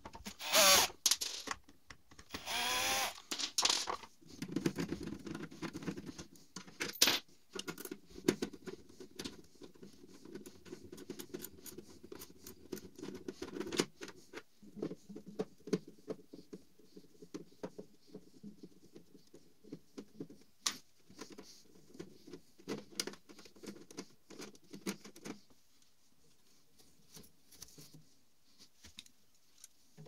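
A Bosch cordless drill-driver runs twice in short bursts within the first few seconds, backing out a refrigerator's casing screws. After that come many small clicks, taps and light rattling as screws, sheet metal and parts are handled, thinning out near the end.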